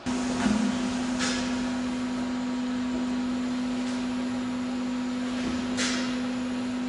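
Codi-Pack CODI-6004 oil filling line running, with a steady machine hum. Two short hisses come about a second in and near the end.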